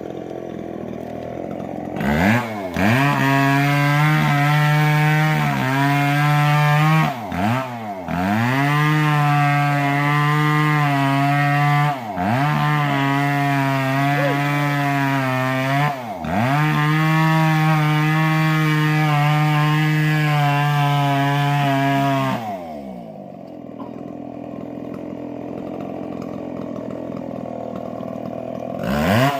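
Stihl two-stroke chainsaw ripping a log lengthwise. It idles, is throttled up about two seconds in and holds at high revs with several brief dips as the chain bites. It drops back to idle for several seconds, then revs up again near the end.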